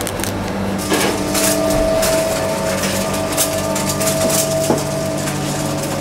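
A stainless-steel bakery rack on casters being wheeled along, with scattered clicks and rattles from its trays, over a steady mechanical hum of bakehouse equipment. A higher tone comes in about a second in and holds for several seconds.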